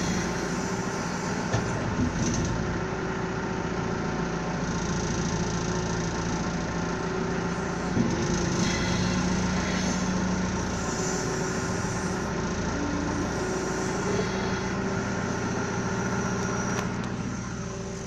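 Backhoe engine running steadily under load while digging, with a few short knocks. The engine drops lower near the end.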